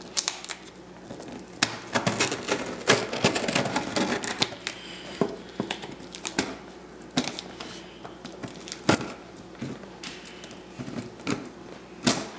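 Scissors cutting through packing tape along the seams of a cardboard shipping box: an irregular run of sharp snips, clicks and crackles, densest in the first few seconds, with the box knocking as it is handled and tipped over near the end.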